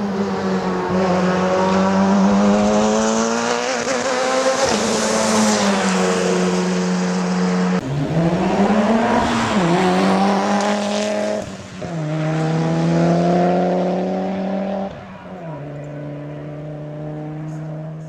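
Race car engine running hard under load. Its note breaks and steps in pitch with several gear changes, and it grows somewhat quieter over the last few seconds.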